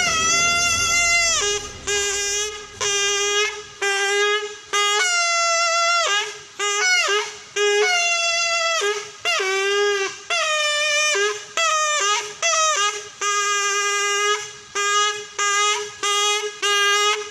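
Buffalo-horn trumpet blown in a string of about seventeen blasts, each half a second to a second long, on a steady low note, with some blasts starting higher and sliding down to it. It is the call used to summon siamang gibbons from the forest.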